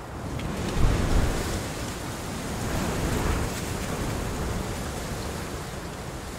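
Heavy rain falling on papaya leaves and nearby surfaces, a steady hiss, with a brief louder low swell about a second in.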